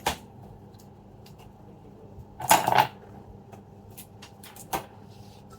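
Small hard laptop parts being handled and taken apart: a few light clicks and one short clatter about two and a half seconds in.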